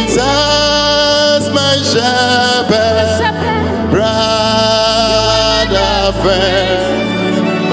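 A man singing a slow gospel hymn into a microphone, holding long notes with vibrato and sliding between them, over sustained instrumental chords.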